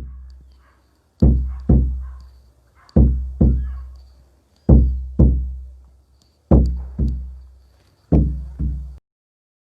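Shamanic frame drum beaten in a heartbeat rhythm: five deep double beats, roughly every two seconds, each stroke booming and fading, then stopping abruptly near the end.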